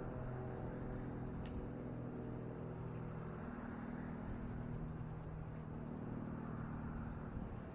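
An engine running steadily in the background, a low even hum, with a faint click about one and a half seconds in.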